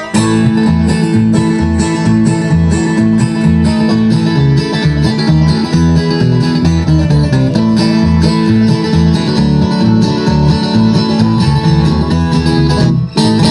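Live bluegrass string band playing an instrumental passage: plucked strings over a steady, pulsing bass, with a brief stop near the end.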